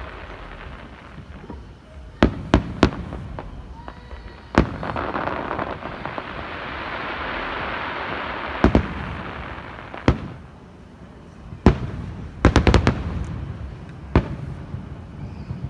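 Fireworks going off: a string of sharp bangs, some coming in quick clusters, with a crackling, hissing spray building and fading between about five and ten seconds in.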